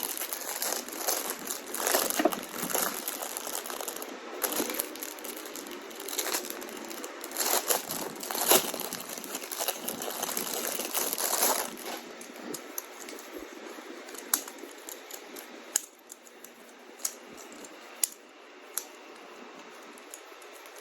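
Plastic packaging crinkling and rustling as a fidget toy is handled and unwrapped, busy for about twelve seconds, then quieter with a few sharp scattered clicks.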